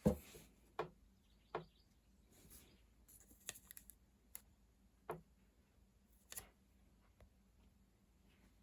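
Faint handling noises from unboxing a smartphone. Scattered taps and clicks of the phone and its box and packaging being picked up and set down, with a quick run of small ticks near the middle.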